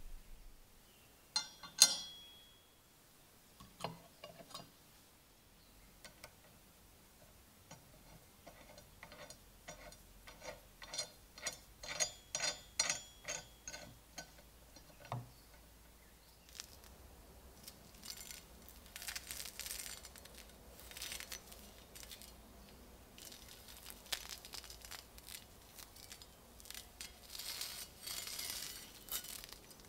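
Small steel bayonet parts clinking on a wooden work block, the loudest a sharp clink with a short ring. It is followed by a run of light, evenly spaced metallic clicks as gloved fingers work a small stud on the hilt, then the rustle of gloved hands handling the rusty bayonet.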